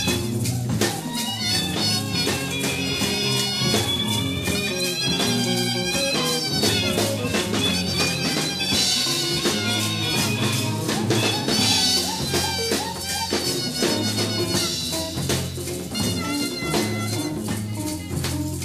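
1974 studio recording of a jazz ensemble, played back from a cassette dub of the reel-to-reel master. A steady bass line and drums run under busy hand percussion and rattles, with a wavering melodic line above.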